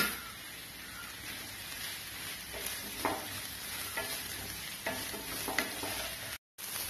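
Sliced onions sizzling in coconut oil in a non-stick frying pan and being stirred with a wooden spatula: a steady frying hiss, with a scraping stroke every second or so from about two and a half seconds in. The sound cuts out to silence for a moment near the end.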